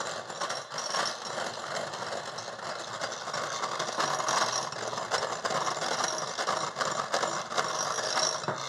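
Handheld electric mixer running steadily, its beaters whipping egg whites in a glass bowl as the first spoonful of sugar is beaten in. The motor stops right at the end.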